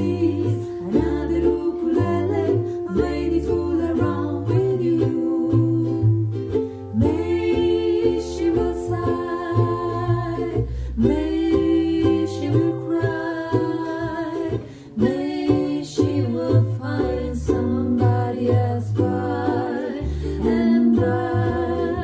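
Ukulele strumming over a plucked double bass line, with a woman's voice singing a 1920s-style jazz tune.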